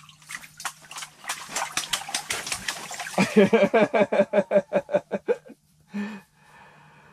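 A man laughing hard: about three seconds of quick, breathy huffs that turn into a fast run of voiced "ha-ha-ha", several a second, stopping about five and a half seconds in. A faint steady low hum runs underneath.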